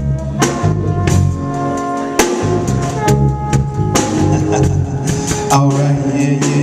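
Live band playing an instrumental passage: drum kit keeping a steady beat under a walking bass line, with held chords on top.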